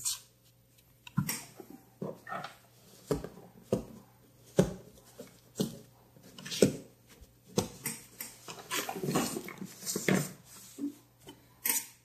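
A dozen or so irregular sharp taps and knocks on a tabletop as a printed parts sheet is handled, with rustling around nine to ten seconds in and a last tap just before the end as a plastic ruler is set down on the sheet.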